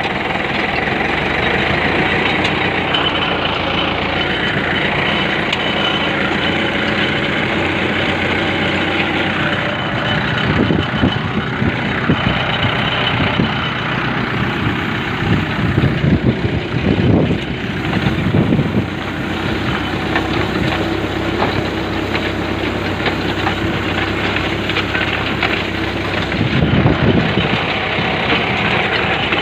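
Tractor engine running steadily as it pulls a seed drill sowing groundnut, with clatter from the drill's metal frame and chain drive, swelling louder a few times.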